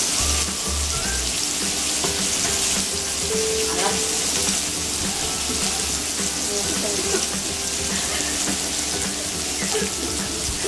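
Slices of pork belly sizzling on a round grill pan, a steady hiss.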